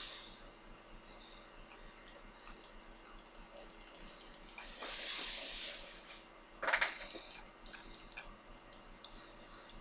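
Faint computer keyboard and mouse clicking, with a quick run of clicks a few seconds in, a brief rustle around five seconds, and a louder cluster of clicks near seven seconds.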